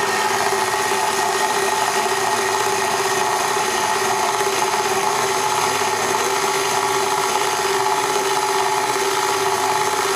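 KitchenAid stand mixer running steadily, its dough hook turning through melted marshmallow and powdered sugar for fondant: an even motor hum with a held tone.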